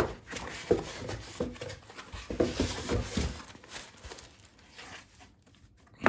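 Cardboard box being opened by hand: packaging rustling and scraping, with scattered knocks and a sharp thump at the very end.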